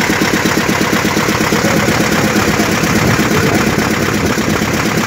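A small fishing boat's engine running steadily, with a fast, even knocking beat.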